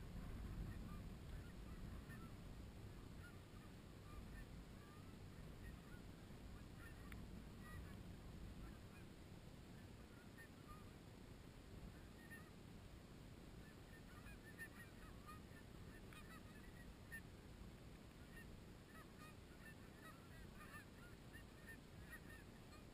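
A distant flock of Canada geese honking, with many short overlapping calls that come thicker toward the end as the flock draws closer, over a low rumble.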